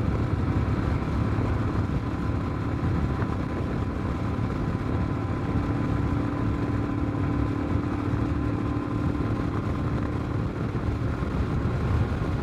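Royal Enfield Himalayan's 411 cc single-cylinder engine, fitted with a Tec camshaft, running steadily under load while climbing a grade at about 60–65 mph, with wind rushing over the microphone.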